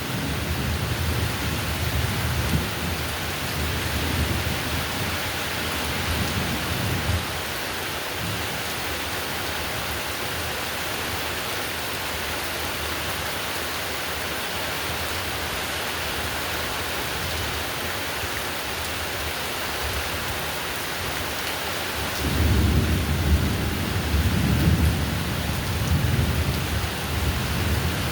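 Heavy, steady rain hissing, with low rolling thunder rumbling over it. The rumble stops suddenly about seven seconds in and returns at about 22 seconds.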